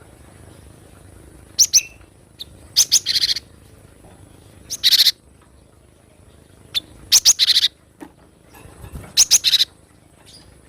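Cinereous tit (gelatik batu) calling: about five short bursts of sharp, high chirps and quick rattling note runs, a second or two apart.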